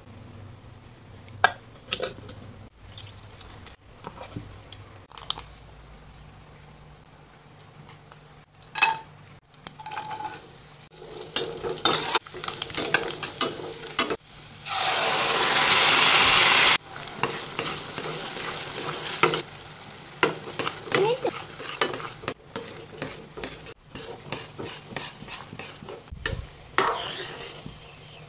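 A spatula stirring and scraping in a metal pan, with scattered clicks and knocks, as onions and cashews fry and sizzle in oil. A loud, even hiss lasting about two seconds comes about halfway through.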